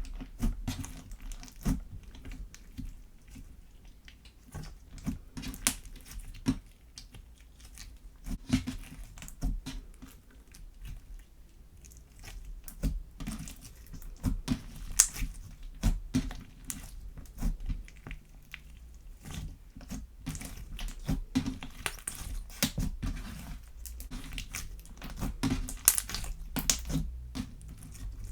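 Slime being squeezed and kneaded by hand, giving an irregular run of sticky clicks, squelches and small pops.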